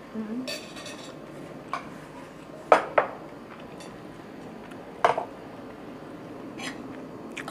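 Cutlery clinking against plates during a meal: a few separate sharp clinks, the loudest two close together about three seconds in and another about five seconds in, with a brief rustle near the start.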